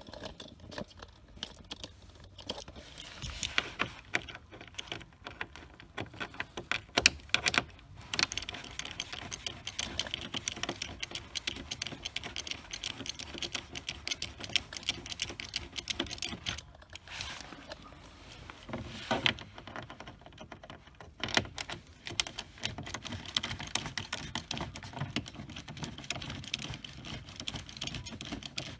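Small thumb-wheel ratchet clicking rapidly in long runs as it turns out 7 mm screws, with a couple of brief pauses.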